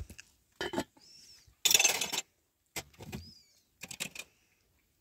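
Metal lid being put on a cooking pot: several short clanks and scrapes of the lid against the rim, the loudest a scrape about two seconds in.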